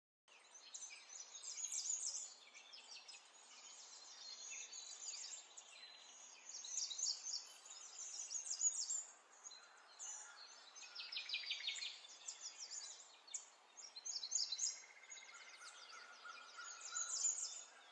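Several small songbirds chirping and singing together over faint outdoor background noise, with a rapid trill about eleven seconds in.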